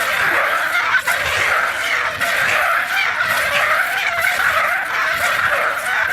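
A laser disc sound effect: a continuous, raspy screech with a wavering pitch, and a short click about a second in.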